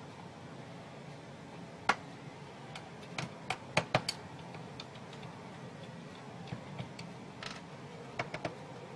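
Irregular sharp clicks and taps of small hard objects being handled: one about two seconds in, a cluster around three to four seconds, and a few more near the end, over a faint steady background hiss.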